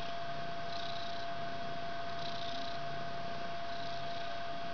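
Mother cat purring while nursing her kittens, over a steady background tone and hiss.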